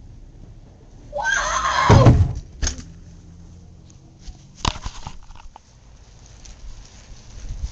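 A shrill, wavering yell that ends in a heavy thump about two seconds in, followed by a couple of sharp knocks a little later.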